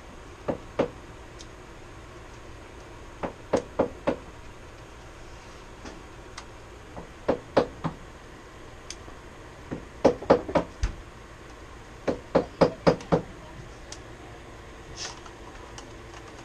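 Sharp knocks in quick bursts of two to five, coming every two to three seconds, with a few single fainter taps in between.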